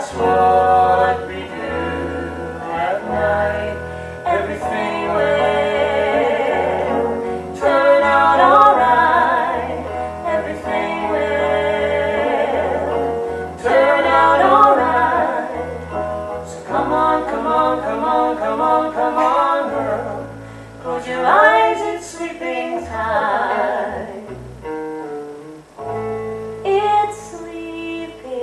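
Live concert music: a song sung with vibrato over band accompaniment and a steady bass, heard from the audience.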